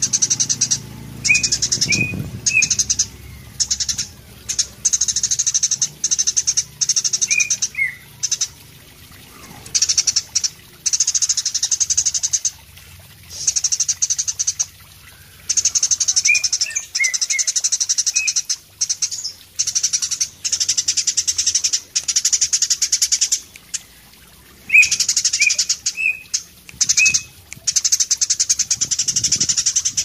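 Eurasian tree sparrow singing in full voice: a rapid, high-pitched chattering song in repeated bouts of one to two seconds, broken by short pauses, with brief chirps mixed in.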